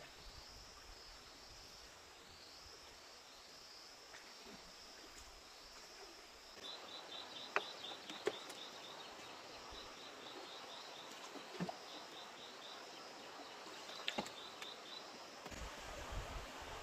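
Faint outdoor ambience of insects and birds chirping high and steadily. About a third of the way in, a run of quick repeated chirps starts, and a few sharp knocks sound over it.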